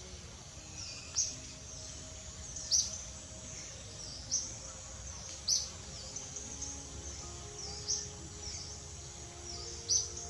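Short, sharp, high-pitched bird calls repeating about every one to two seconds over a steady outdoor background rumble.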